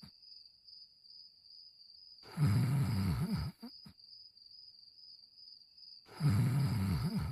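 Cartoon dog snoring: two long, low snores about four seconds apart, the second ending at the very end. A faint steady high-pitched whine runs underneath.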